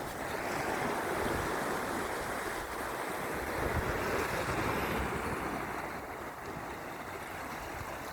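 Sea surf washing in, a continuous rushing noise that swells over the first few seconds and eases a little later on, with wind buffeting the microphone.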